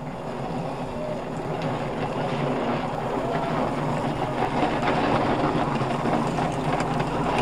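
Hard plastic wheels of toddler ride-on toys rumbling and rattling down a wet tarmac path, growing steadily louder as they come closer.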